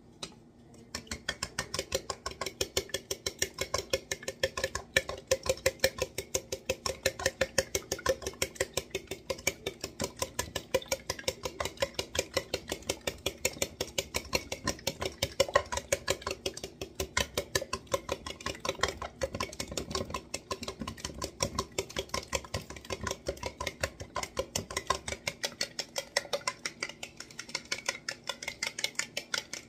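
Fork beating raw eggs in a stemless glass, clinking quickly and evenly against the glass as the eggs are whipped.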